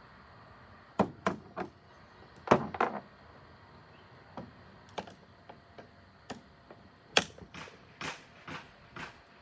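Sharp clicks and knocks of a metal hand tool and loose parts against a Husqvarna 394XP chainsaw while its handlebar is being unbolted. There is a group of clicks in the first few seconds, a few single ones, then a quicker run of about six in the last two seconds.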